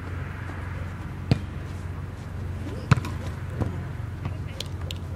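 Volleyball impacts: two sharp smacks about a second and a half apart, then a fainter one, over a steady low hum.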